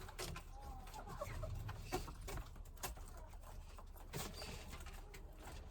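Chickens clucking quietly, a few short calls, with scattered light clicks and rustles as they peck at grass.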